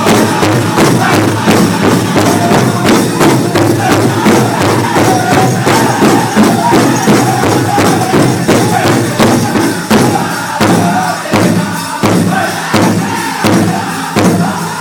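Powwow drum group playing: men strike one large shared bass drum in a steady, even beat and sing together in high voices over it.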